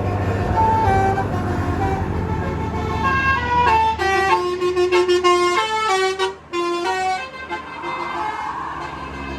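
A Basuri telolet multi-tone bus horn plays a melody of stepped notes. The notes quicken into a rapid run in the middle before slowing again, over the steady low hum of the bus engine running.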